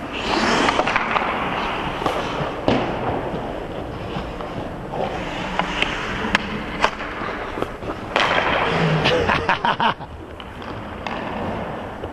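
Ice skate blades scraping and carving on rink ice in two bursts, near the start and about eight seconds in. Between them come scattered sharp cracks of hockey sticks and pucks on passes and shots.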